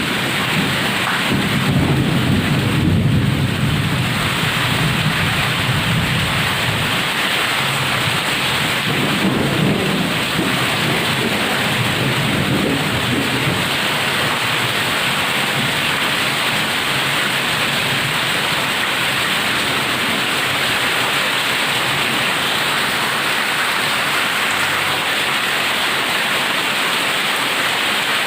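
Heavy rain falling steadily, with low thunder rumbling through the first few seconds and again about ten seconds in, then dying away to leave only the rain.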